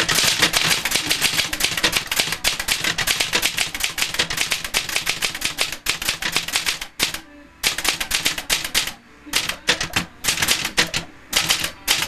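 Fast typing on a 1970s Olivetti Linea 98 manual typewriter: a rapid clatter of typebar strikes as the carriage steps along, with brief pauses about seven and nine seconds in. The margin bell does not ring as the carriage nears the end of the line, a fault the owner keeps running into.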